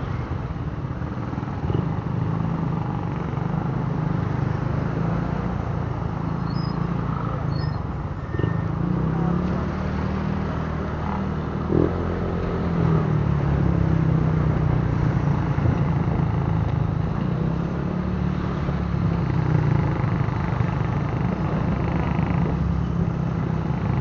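Motor scooter engine running at low speed in traffic, its pitch rising and falling with the throttle, with a short knock about twelve seconds in.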